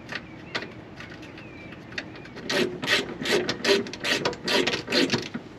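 A lock nut being threaded onto a trailer leaf-spring bolt: a few light clicks, then from about halfway a rhythmic run of short rasping, ratcheting strokes, about three or four a second.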